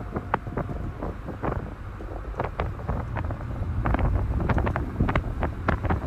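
Strong wind buffeting the microphone as a low rumble, with a dry, irregular crackling rustle from the stalks of a wind-blown grain field. The gusts get louder about four seconds in.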